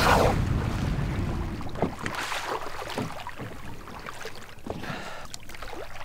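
Sea water sloshing and splashing at the surface beside a boat, with a low engine rumble that fades away in the first second or so. A short, loud rush of air or spray comes right at the start.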